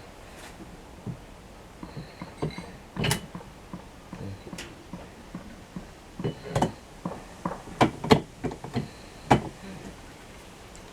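Scattered clicks, clinks and knocks of tools and metal parts being handled as an outboard motor is put back together, with a quick run of sharper knocks from about six to nine and a half seconds in.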